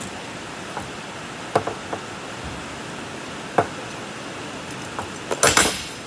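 Metal knocks and clinks as a C-clamp is worked on an aluminium grille with a stainless mesh centre, resting on a bench. There are a few single knocks, then a quick cluster of sharper clinks near the end, all over a steady hiss of rain.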